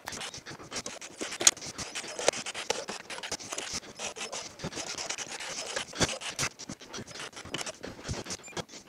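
Irregular scratching and rubbing with scattered light clicks, one sharper click about a second and a half in: hands handling a tool and the cover's bolts.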